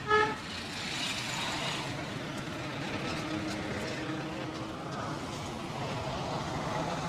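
Street traffic noise with a short, loud vehicle horn beep right at the start.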